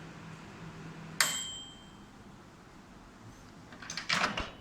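Microwave oven running with a steady low hum, then a sharp metallic ding with a ringing decay about a second in as the heating stops. Near the end, a short clatter of the oven door or the plate being handled.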